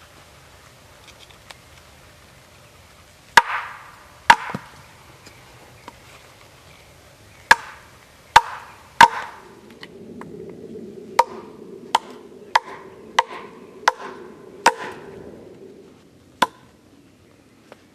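Sharp wooden knocks of batoning: a knife struck through short sticks with a wooden baton against a log to split kindling. About a dozen strikes, uneven at first, then coming more evenly about every two-thirds of a second.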